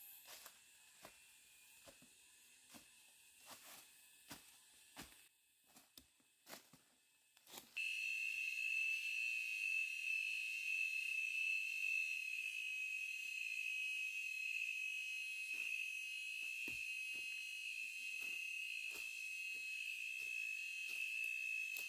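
Scattered light clicks and rustles, then about eight seconds in a steady, high, slightly wavering insect drone starts suddenly and carries on.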